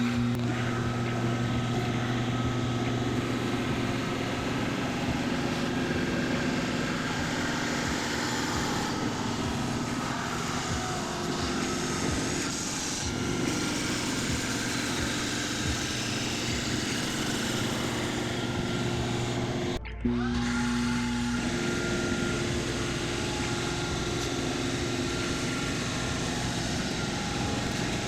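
Milling machine running steadily with a keyhole bit cutting slots in plywood, its motor giving a constant hum under the cutting noise. There is an abrupt break about 20 seconds in, after which it carries on.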